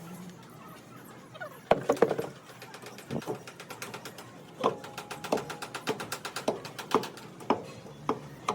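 A series of sharp metal knocks and taps. Two loud ones come near the start, then they repeat about every half second with fine ticking between.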